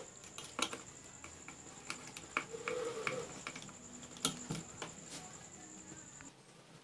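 Small screwdriver tightening terminal screws on an electrical switch and socket board: scattered light clicks and scrapes of metal on plastic. A faint steady high whine runs underneath and stops near the end.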